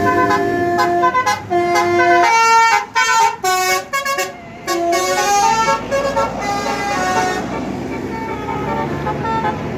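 A bus's Basuri 'telolet' multi-tone musical horn plays a tune. Held notes change pitch in steps, a run of quick short toots comes in the middle, and then the notes glide and change again.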